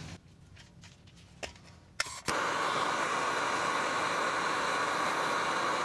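Handheld gas torch burning with a steady hiss from about two seconds in, heating a seized rear brake caliper bracket bolt to free it. It starts after a sharp click, with a couple of quieter seconds before.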